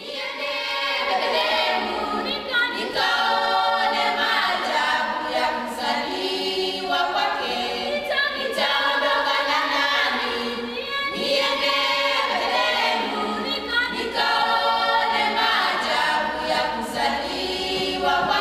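A cappella choir singing, several voices together without instruments.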